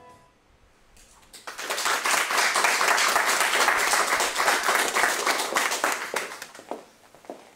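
A small audience applauding. The clapping builds about a second in, holds, then dies away near the end into a few last separate claps.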